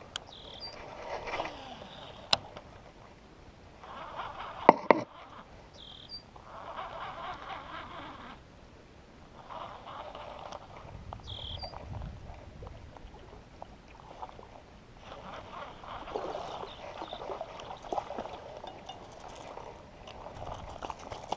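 A bird giving a short, high call three times, about every five or six seconds, over outdoor rustling and handling noise with a few sharp clicks.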